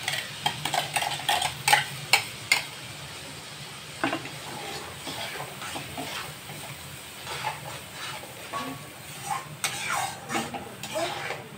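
Tomato paste sizzling as it fries in hot oil and spices in a steel kadhai. A steel spoon scrapes and taps against the metal as the paste is spooned in and stirred, giving sharp clinks over the steady frying sizzle, most of them in the first couple of seconds and again near the end.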